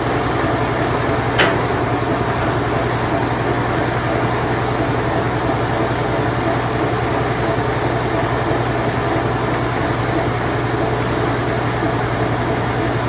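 Late-1980s Whirlpool Imperial Clean Touch washing machine running its spin cycle: a steady, even hum with a low drone, and a single sharp click about a second and a half in.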